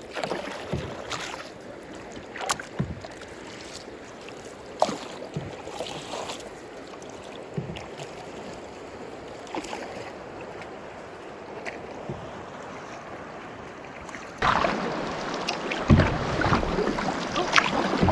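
Canoe on open lake water: paddle strokes and splashes with water slapping against the hull over a steady rush of wind, which grows louder near the end.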